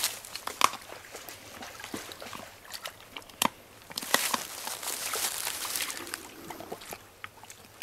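Wolf gnawing and crunching on a deer spine and ribs: a string of sharp bone cracks and clicks, with splashing and trickling water as it works the carcass in a shallow stream.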